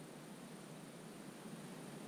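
Faint, steady hiss of calm wetland ambience, with no distinct bird calls or other events.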